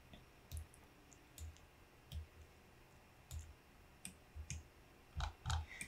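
Faint computer mouse button clicks, about a dozen short clicks scattered irregularly, some in quick pairs, as node links are clicked and dragged in the software.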